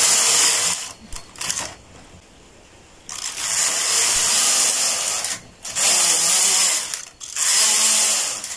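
Knitting machine carriage pushed back and forth across the metal needle bed, knitting rows. It comes in several passes, each a loud, even rush of noise, with short pauses between.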